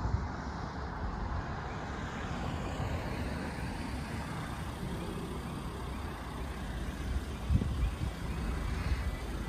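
Steady low rumble of vehicle noise, with a few low thumps about seven and a half seconds in.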